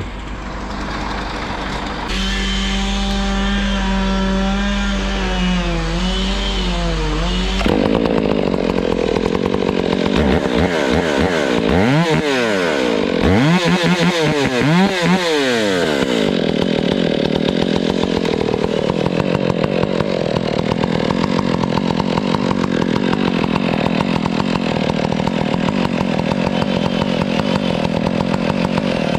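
Stihl chainsaw: a steady engine note for the first few seconds, then revved up and down several times, then held at full throttle through the rest, cutting into a Canary Island palm trunk.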